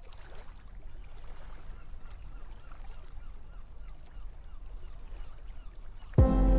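Night harbour ambience: a low steady rumble with faint scattered chirps. A music track starts abruptly near the end, much louder than the ambience.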